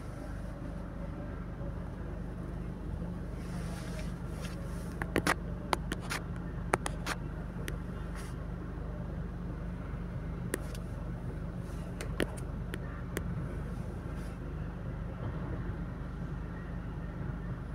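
Steady low rumble inside a car with the windows up, the vehicle idling or creeping in traffic. A cluster of sharp knocks comes about five to seven seconds in, and a few single ones follow later.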